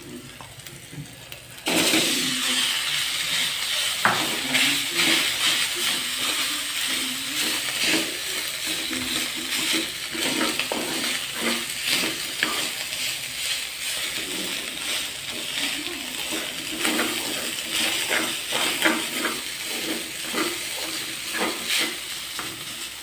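Cooked rice sizzling as it goes into hot oil in a metal wok, starting suddenly about two seconds in, then frying steadily while a wooden spatula stirs and scrapes it around the pan in quick repeated strokes.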